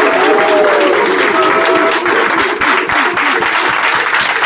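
A group of people applauding steadily, with raised voices over the clapping during the first two seconds.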